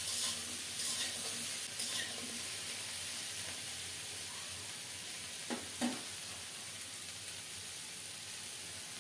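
Cauliflower and flat beans sizzling steadily in hot mustard oil in an aluminium kadai. A spatula scrapes and stirs them in the first couple of seconds, and there are two light knocks a little past halfway.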